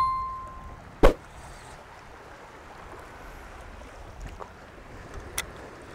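Gentle sea washing over shore rocks, with light wind. A short bell-like chime sounds at the start, and a single sharp knock comes about a second in.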